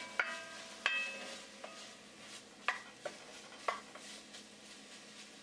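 Mushroom pieces being moved by hand in an enamelled cast-iron pot, with about seven sharp knocks against the pot, each ringing briefly, in the first four seconds, over a soft steady sizzle of the mushrooms frying.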